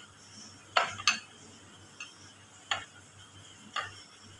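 Kitchen knife cutting bread pieces on a glass plate, the blade clicking sharply against the glass: a quick pair about a second in, then single clicks about a second apart.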